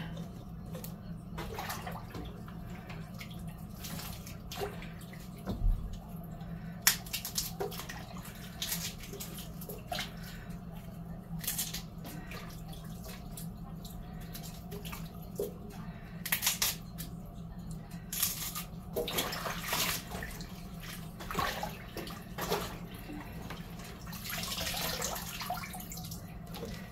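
Shredded cabbage being rinsed by hand in a pot of water in a kitchen sink: scattered splashes and wet rustles, with a longer splashy stretch near the end, over a steady low hum.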